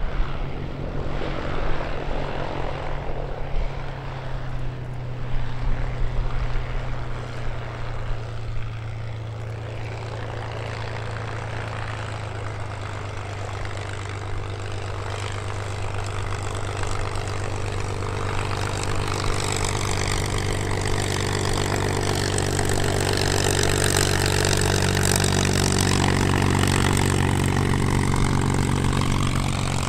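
Piston-engined propeller aircraft running with a steady engine note that grows louder over the second half.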